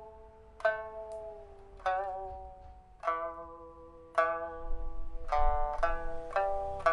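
Rosewood pipa with a newly fitted soundboard and new frets, played solo: single plucked notes that ring and die away, about one a second, one gliding down in pitch and another wavering under the left hand. In the last two seconds the plucks come closer together.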